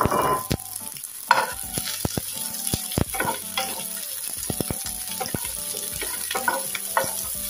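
Carrots and green beans sizzling in oil in a pan over high heat while being stirred, with many short clicks and scrapes of the utensil against the pan.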